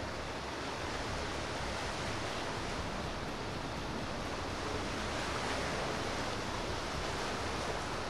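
Steady rushing noise of wind and moving water, even throughout, with no distinct engine note.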